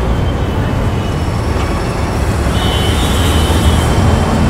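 Heavy city road traffic: a dense, steady rumble of many engines, with a brief high-pitched tone about two and a half seconds in.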